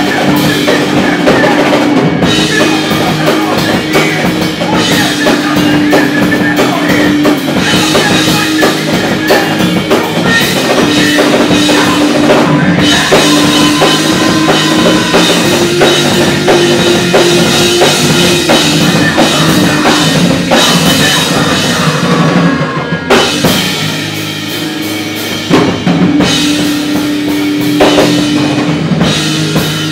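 Melodic hardcore band playing live and loud: electric guitar and drum kit driving hard. About three-quarters of the way through the band drops back for a couple of seconds, then comes in full again.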